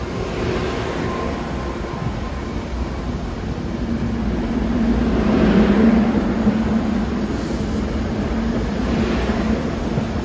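Bombardier push-pull coaches of a SEPTA Regional Rail train rolling past at low speed: a steady rumble with three swells of rushing wheel noise as the cars go by, and a steady low hum joining in about four seconds in.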